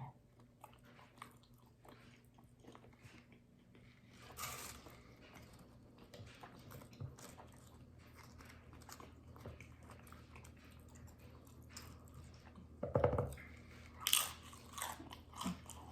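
Close-up eating sounds: a quesadilla being bitten and chewed, with soft crunching and mouth clicks. There is a louder bite about four seconds in and a cluster of louder chewing sounds near the end.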